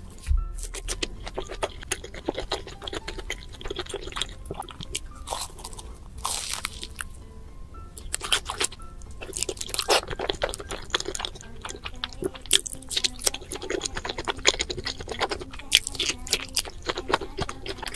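Crunching and chewing of crumb-coated fried food with a cheese filling, many crisp crackling bites throughout, over background music.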